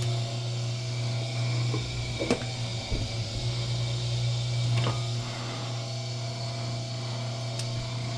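Wire stripping machine running steadily with a low hum as thick copper wire is fed through, with a few faint clicks and knocks.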